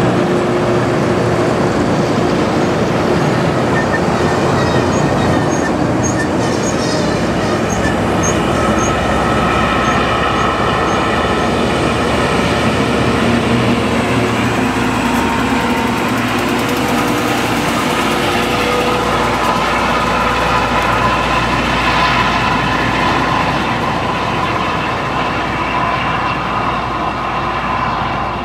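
Loram rail grinder train passing close: a loud, steady mechanical din of its engines, motors and wheels on the rail, with whining tones that grow stronger past the middle.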